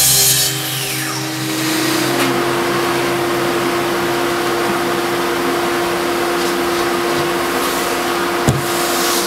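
Plunge track saw blade spinning down after a cut through a panel, its whine falling in pitch over the first second or so, while the dust extractor hooked to the saw keeps running with a steady hum. A single knock near the end.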